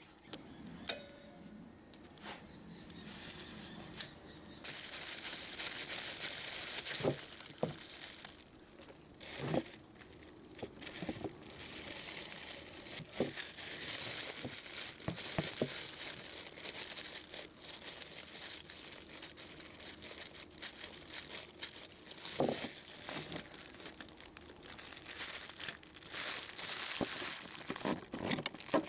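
Crinkling and rustling handling noise with scattered small knocks and clicks, heavier from about five seconds in.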